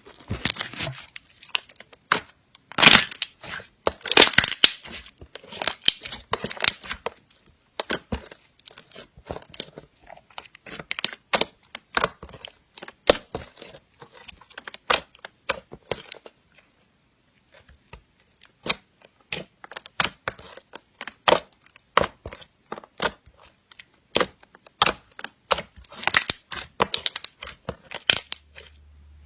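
Slime being squeezed and stretched by hand, giving off dense irregular crackles and sharp pops as air pockets burst, with a short lull about two-thirds of the way through.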